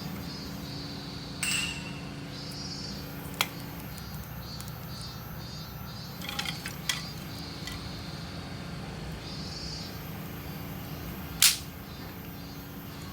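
Steady low drone of a truck engine, with a few short sharp clicks and scrapes on top, the loudest about eleven seconds in.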